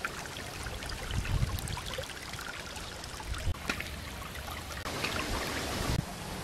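Skewered catfish roasting over hot charcoal embers, sizzling with many small crackles and pops. Near the end a thin stream of liquid starts pouring into a coconut-shell bowl.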